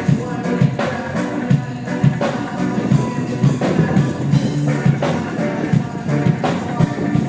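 A band playing a song live at a soundcheck: a drum kit keeps a steady beat of about two strokes a second under electric guitar and bass.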